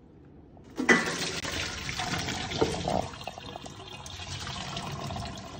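Water pouring and splashing into a stainless-steel kitchen sink as a pot of diced apples is rinsed and drained. It starts suddenly about a second in and runs as a steady splash until near the end.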